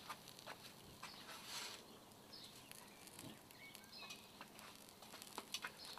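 Near silence: faint outdoor ambience with scattered soft ticks and a few faint, short bird chirps.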